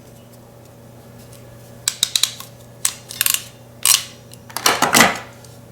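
Ratcheting crimping tool clicking as its handles are squeezed to crimp a butt connector onto a wire, in several short bursts of sharp clicks, the loudest near the end.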